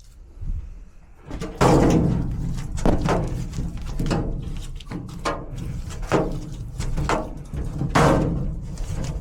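Sheet-metal supply plenum thudding and scraping about once a second as duct mastic is worked onto its joints, each stroke knocking the thin metal so it rings briefly.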